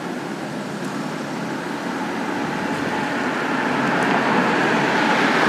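Road traffic noise, a steady rushing sound that grows louder throughout.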